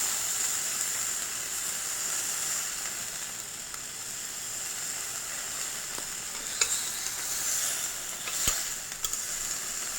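Wagyu beef sizzling on a hot iron plate, a steady high hiss, with three sharp ticks in the second half.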